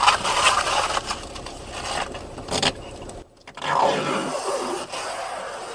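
Thin plastic protective film from a perspex window panel being scrunched up in the hands, crackling and rustling in bursts, with a short pause a little past halfway.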